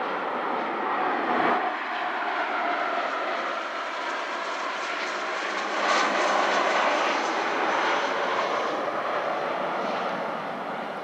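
Bombardier Global 6000 business jet's twin Rolls-Royce BR710 turbofans on final approach to land: a steady jet rush with a whine, loudest about six seconds in.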